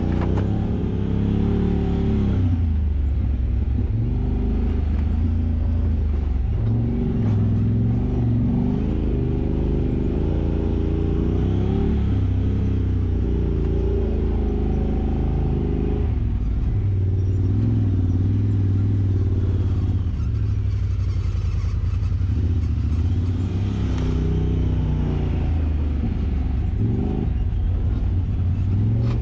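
Side-by-side UTV engine running on the trail, its revs rising and falling again and again under a steady low rumble.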